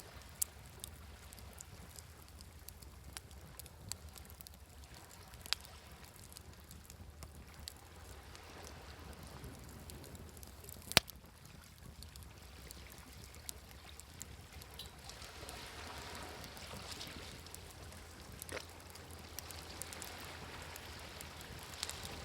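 Wood fire crackling with scattered sharp pops, one much louder pop about halfway through, over waves washing ashore that swell twice, the second time near the end.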